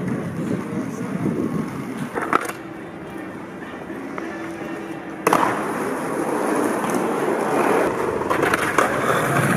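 Skateboard wheels rolling over stone paving, with one sharp knock about two seconds in and a sudden louder stretch from about five seconds.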